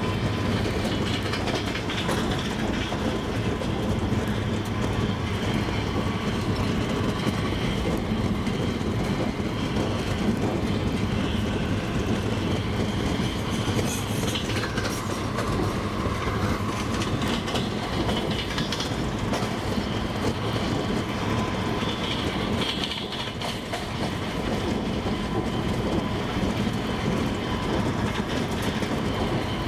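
Double-deck passenger train rolling steadily, its wheels clicking over the rail joints above a continuous rumble.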